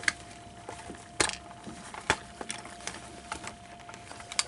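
Scattered light clicks and taps of plastic parts being handled as an animatronic figure's head is opened up, a few of them sharper knocks.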